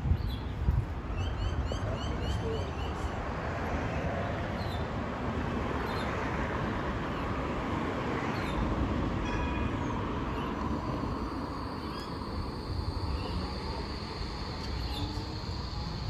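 Bombardier Flexity Classic tram running slowly along the line, a steady rolling and motor noise with a high steady whine coming in about two-thirds of the way through. Birds chirp over it.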